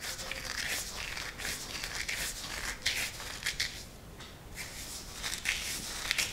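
Ajwain (carom seeds) crushed by rubbing them between the palms: dry, irregular rustles and short crackles.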